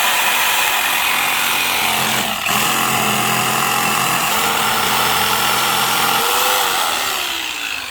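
Electric jigsaw cutting through a 2x4 wood board, running steadily with a brief dip about two seconds in. Near the end the trigger is released and the motor winds down with a falling whine.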